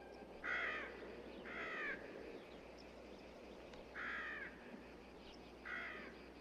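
A crow cawing four times, each a short, harsh caw, with gaps of one to two and a half seconds between them, over a faint hiss.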